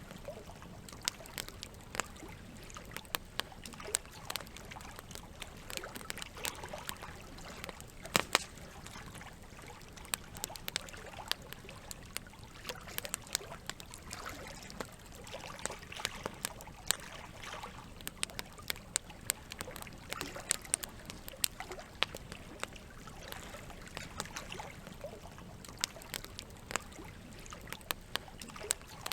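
Wood campfire crackling with irregular sharp pops, the loudest about eight seconds in, over a steady trickle of running water.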